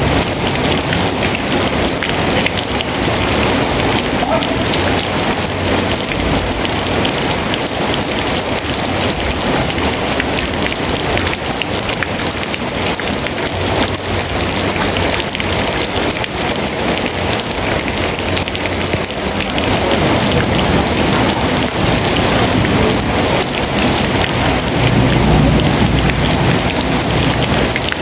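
Steady heavy rain pattering on a surface, a dense even hiss. A low thunder rumble swells in underneath in the last third.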